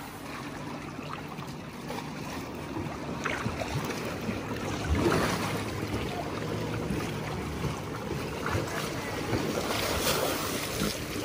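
Water sloshing and splashing around an African elephant moving in a pond, with louder splashes about five seconds in and again near the end as she sprays water from her trunk.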